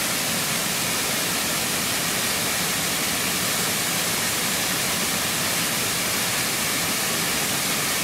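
Steady rushing of a waterfall: an even, unbroken hiss.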